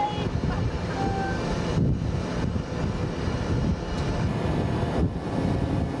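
Ship's deck crane and machinery running with a steady low rumble while an Argo all-terrain vehicle is craned over the side onto sea ice, with a couple of brief faint tones near the start.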